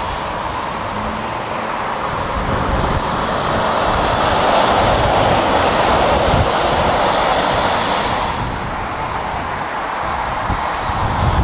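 Heavy lorries and road traffic passing close by, a steady rush of engine and road noise that swells in the middle as a lorry goes past and then eases, with wind buffeting the microphone.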